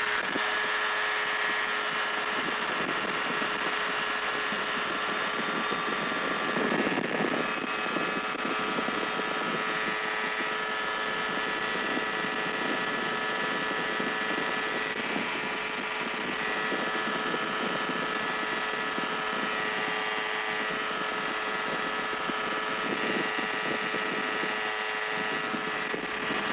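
FlightStar ultralight's engine and propeller running at a steady high power through the takeoff roll and climb-out, an even drone that holds one pitch.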